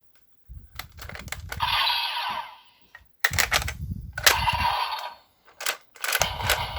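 Plastic DX Geardalinger toy gun being handled, with sharp plastic clicks and knocks from its gears and trigger. Twice it gives a short burst of hissy electronic sound effect from its small built-in speaker.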